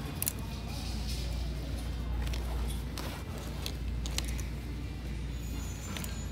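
Low handling rumble with scattered light clicks as hanging bags on a rack are pushed about, over faint background music.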